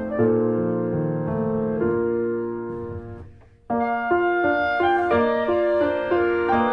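Slow, gentle piano music: held chords fade away to a brief pause a little past halfway, then a new phrase of shorter notes begins.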